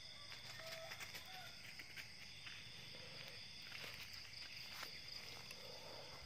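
Night insects chirring steadily, with faint crackling and rustling of dry leaf litter as someone walks and handles the leaves.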